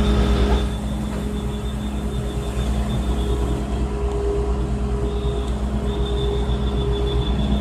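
Diesel engine of a horizontal directional drilling rig running steadily, a low pulsing rumble with a thin high whine above it.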